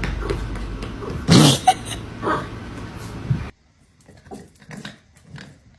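A dog making vocal sounds, with the loudest one about a second and a half in; the sound cuts off suddenly about three and a half seconds in, leaving only a few faint short noises.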